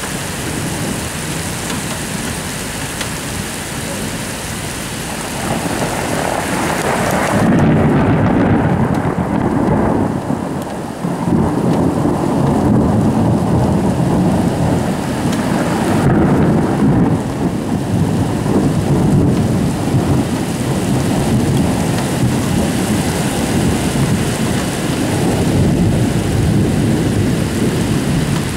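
Steady heavy rain, joined about five seconds in by a long rumble of thunder. The thunder grows loudest about eight seconds in, dips briefly near eleven seconds, and keeps rumbling loudly over the rain.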